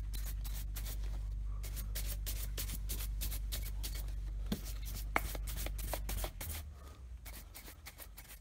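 Shoe brush swept rapidly back and forth under hard pressure over the polished edge of a shoe heel, buffing the polish to a shine: a quick run of bristle strokes, several a second. A low steady hum underneath drops away about six seconds in.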